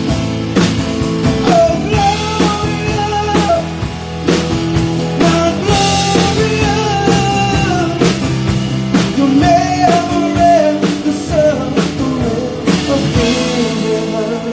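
A live rock band playing a song: drum kit, electric bass, acoustic guitar and piano, during a stretch between sung lines.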